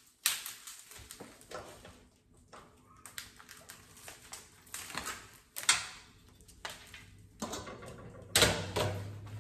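Plastic packaging of ground beef crinkling and rustling as it is handled and opened, with scattered irregular knocks. The loudest knock comes near the end, close to the microphone, and a low steady hum starts with it.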